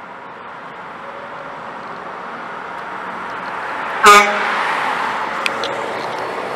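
Mack dump truck approaching with its engine and tyres growing louder, then one short horn toot about four seconds in as it draws level, followed by the truck passing by.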